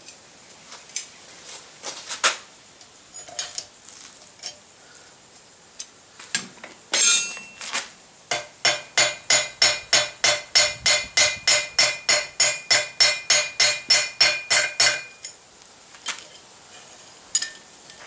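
Hammer blows on steel, driving a pin through a hand-forged padlock shackle. A few scattered knocks and clinks come first, then a fast, even run of about four ringing strikes a second for roughly seven seconds.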